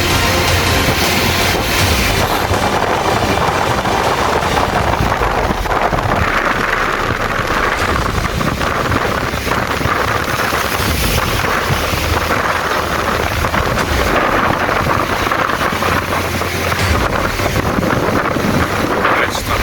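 Strong wind, about 30 km/h, buffeting the microphone: a steady rush of noise with low rumbling gusts that swell and ease.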